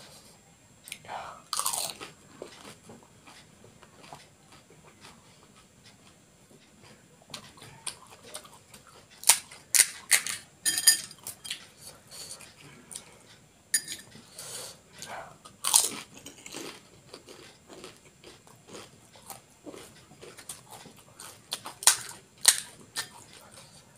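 Crisp fried panipuri (golgappa) shells crunching and crackling as they are cracked open and bitten. The crunches come irregularly, in loud clusters about two seconds in, around the middle, and near the end.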